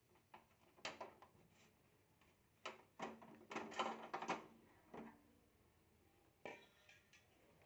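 Framed picture knocking and rattling against the wall and its nail as it comes off, in a run of sharp knocks and clatters, thickest and loudest about three to four seconds in, with a last knock near the end.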